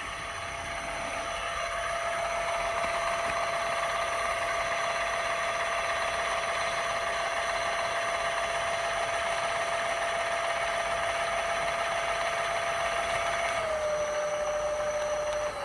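A brushless electric-bike hub motor spinning a fat-bike rear wheel at speed gives a steady electric whine. Near the end the pitch steps down slightly as the pedal-assist level is lowered from 5 to 4.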